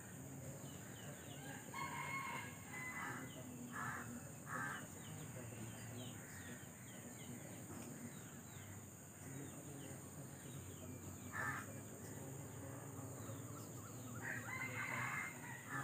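A rooster crowing faintly twice, about two seconds in and again near the end, with a few short calls in between.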